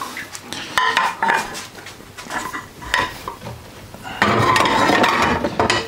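Crockery and cutlery clinking and knocking: a few separate clicks at first, then a louder run of clattering about four seconds in.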